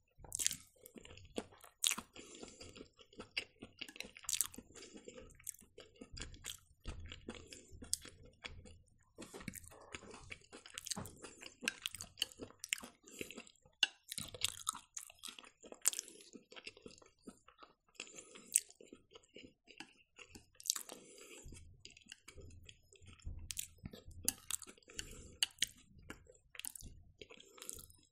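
A person chewing fried champignon mushrooms with her mouth close to the microphone: soft wet mouth sounds broken by many sharp little clicks and crunches at an irregular pace.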